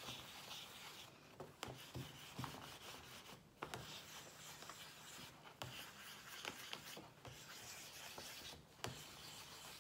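A wooden ball tool rubbed in small strokes over paper laid on a soft sponge: a faint scratchy rubbing with light ticks, pausing briefly every second or two. The paper is being "ironed" to take away its flat look.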